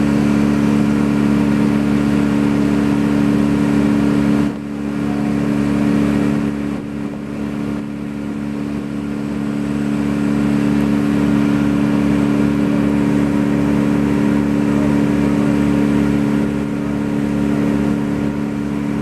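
A motor running steadily at high speed, with a brief dip in level about four and a half seconds in before it settles again.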